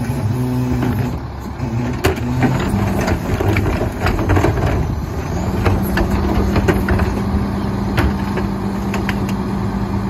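Rear-loader garbage truck's diesel engine running under hydraulic load while the Heil PowerTrak's cart tippers lift and dump wheeled trash carts into the hopper, with scattered knocks and clatter of the plastic carts and falling trash.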